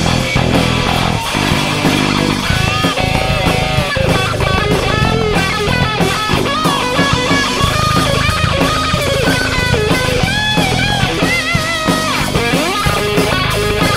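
Rock band playing live, an instrumental passage: drums and bass guitar under a lead electric guitar melody that bends and wavers in pitch, starting a couple of seconds in.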